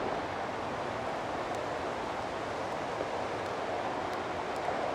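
Steady rushing outdoor noise, with a few faint ticks.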